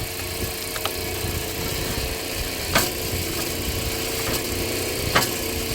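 Homemade hydraulic log splitter's electric motor and pump running steadily as the piston pushes a log onto the wedge, with two sharp cracks about two and a half seconds apart as the wood splits.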